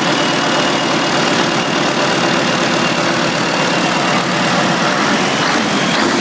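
Scania DC9-series diesel engine idling steadily.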